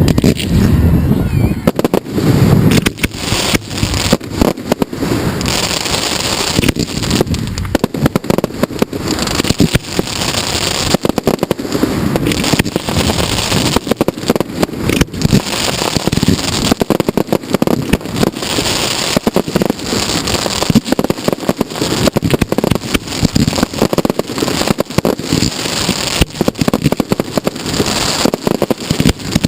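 Fireworks display fired close by in a dense barrage: many sharp bangs of shells launching and bursting in rapid succession, with crackling in between and no break.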